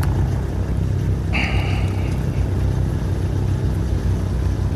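Fishing boat's engine running with a steady low rumble. A brief high-pitched tone sounds for about a second, starting about a second in.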